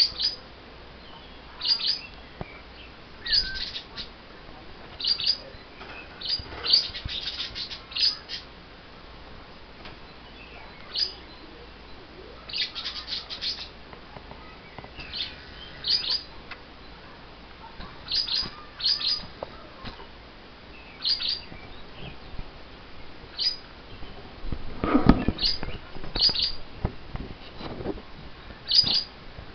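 Pet lovebirds giving short, high chirps every second or two, sometimes several in quick succession; the owner takes them to be a little upset after just having their wings clipped. About 25 seconds in there is a louder rustling knock.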